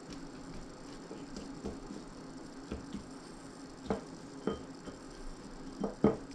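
A spoon tossing sliced radishes in a small glass bowl: soft, scattered taps and clinks against the glass, with a few sharper knocks in the second half and two close together near the end as the bowl is set down on the wooden table.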